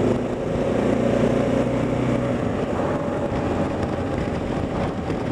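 Kawasaki KLR motorcycle's single-cylinder engine running steadily.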